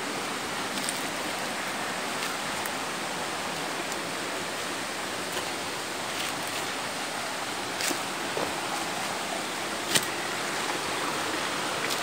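Steady rush of flowing water from a nearby mountain stream, with a couple of short clicks about two-thirds of the way through.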